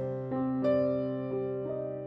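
Soft background music on electric piano, a slow run of sustained notes.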